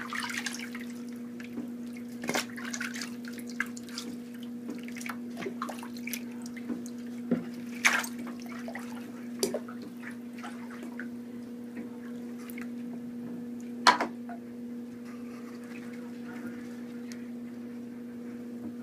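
Scattered sharp clicks and light taps as pet hedgehogs and a hand move about on a plastic basket in a bathtub, the loudest clicks about 8 and 14 seconds in, over a steady low hum.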